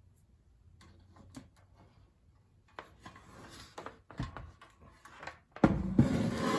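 Handling noise: a few faint clicks, then rubbing and knocks that grow louder, turning into a loud scraping rustle near the end.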